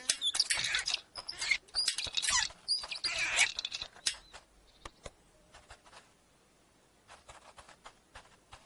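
High-pitched squeaky chattering in a few loud bursts over the first three and a half seconds, then a quieter run of light ticks and clicks.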